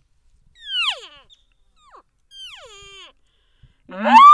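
Elk calls blown by mouth: two falling, whistling cow-elk mews on a hand-held cow call, about a second and two and a half seconds in, then near the end a bull elk bugle through a bugle tube, rising from a low grunt to a loud high whistle.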